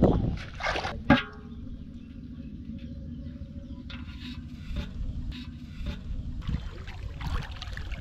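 A steady low rumble with a faint hum, after a single sharp knock about a second in. Shallow water sloshes and splashes in the last second or two.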